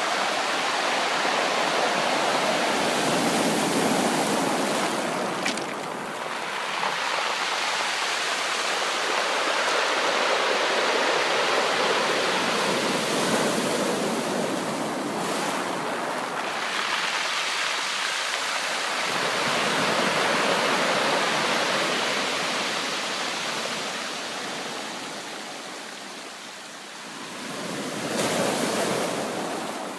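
Ocean waves breaking and washing on the shore, a continuous rush of surf that swells and ebbs every several seconds.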